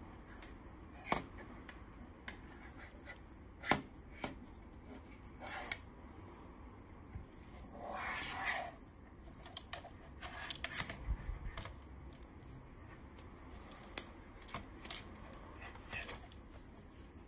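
Plastic Lego pieces being handled and pressed together, giving scattered sharp clicks and small rattles, with a brief rustle about eight seconds in.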